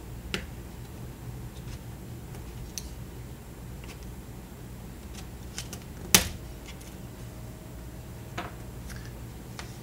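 Scattered small clicks and taps of a precision screwdriver working the tiny screws out of a phone's back housing, with one sharper click about six seconds in, over a steady low hum.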